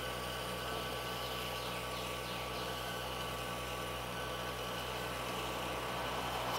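Electric disc sander running steadily, a knife blade held against its wet sandpaper disc: a steady motor hum under an even hiss of wet sanding.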